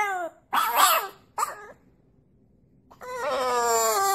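French bulldog howling: a few short howls, a pause, then one long howl about three seconds in that falls in pitch as it fades.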